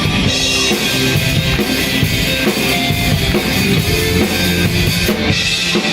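Rock band playing live, with drum kit, electric guitars and bass, in an instrumental passage between sung lines; a cymbal crash comes about half a second in.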